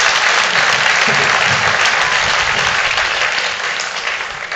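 Audience applauding, a dense steady clapping that starts to die away near the end.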